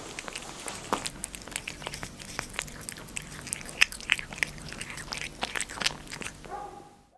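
A cat licking and chewing soft food from a small cup close to the microphone: a dense run of wet smacks and clicks that stops near the end.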